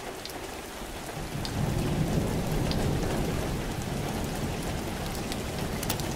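Rain falling steadily, with a low roll of thunder that swells about a second and a half in and slowly fades.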